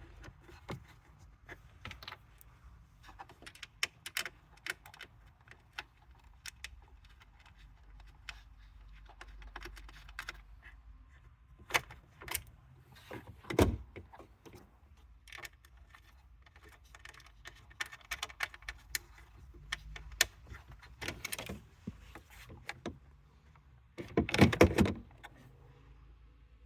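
Scattered clicks and light knocks of hand tools, screws and interior trim parts being handled while fitting the gear lever's 10 mm screws. A louder knock comes about halfway, and a longer clatter lasting about a second comes near the end.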